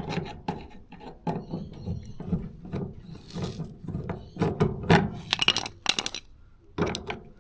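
Screwdriver undoing the screws on a Simpson clothes dryer's panel: a run of irregular clicks, scrapes and small knocks.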